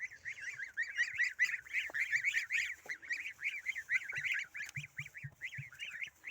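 Domestic fowl calling: a steady chorus of many overlapping short, high-pitched calls, several a second.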